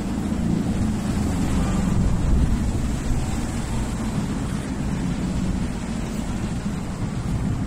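Road traffic passing, cars and a trolley bus, heard as a steady low rumble with some wind buffeting on the microphone.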